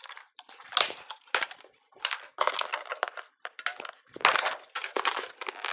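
Snips working at thick packing banding: a run of irregular sharp crunches and clicks as the blades bite and struggle through the tough strap.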